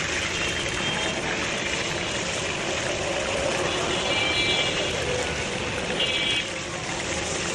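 Chicken deep-frying in hot oil: a steady sizzle, with a few faint, brief high tones over it.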